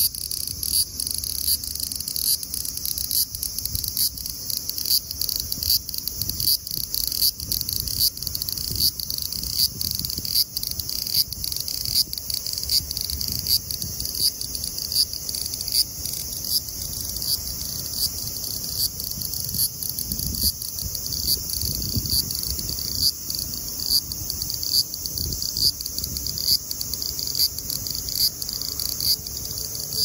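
Large brown cicada (Graptopsaltria nigrofuscata) singing: a steady, high-pitched buzz that rises in louder pulses a little more than once a second.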